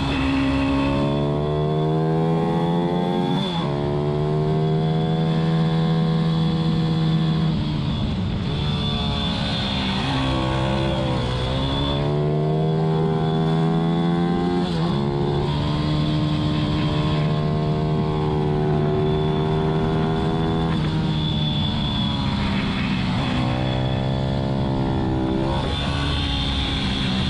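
Pit bike's single-cylinder four-stroke engine at race pace: its note repeatedly climbs under hard acceleration and drops sharply at gear changes and when rolling off the throttle into corners.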